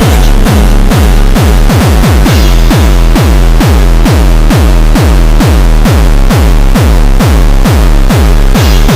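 Very loud, distorted, bass-boosted electronic music: a fast, pounding beat of heavy bass kicks, each dropping in pitch, over dense noisy sound.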